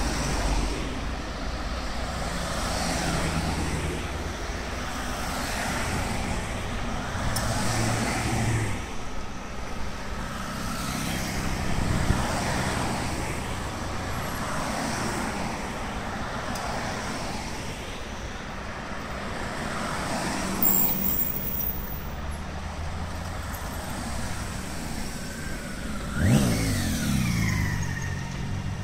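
A slow column of hearses driving past close by, one after another: a steady hum of engines and tyres on the road that swells as each car passes. Near the end one vehicle goes by louder, its pitch dropping as it passes.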